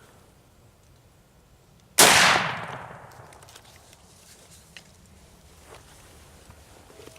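A single hunting rifle shot at a wild boar, a sharp crack about two seconds in that echoes away over about a second.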